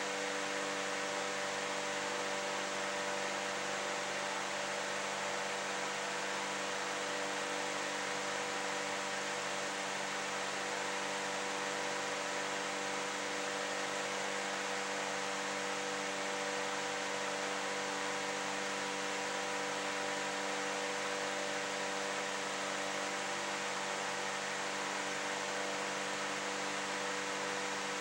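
Steady hiss with a constant hum of several tones under it, unchanging throughout, with no other events.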